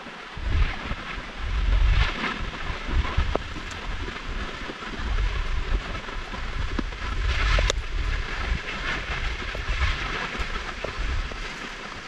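Wind buffeting the microphone in uneven low rumbles, with a hissing rush that swells and fades every few seconds.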